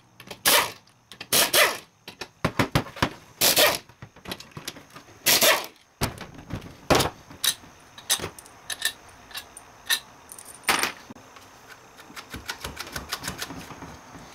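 A hand ratchet and socket backing out the 3/8 bolts on the rear of a 42RH/A500 automatic transmission case. Short bursts of ratcheting and sharp metal clicks and clinks as the tool and the loosened bolts are handled, with a run of small rapid ticks near the end.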